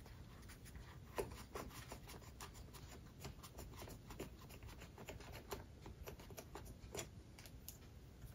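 Faint, scattered clicks and light taps of a motorcycle instrument's chrome mounting bracket and rubber cup being handled and tried against the fork top yoke, with a sharper tap about a second in and another near the end.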